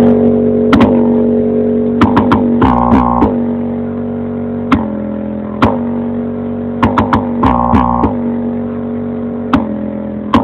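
Loud music played through a car audio system during a bass test of a 15-inch Selenium PW3 subwoofer: a sustained low note held throughout, with sharp percussive hits at irregular intervals and two brief higher-pitched bursts, about 3 and 8 seconds in.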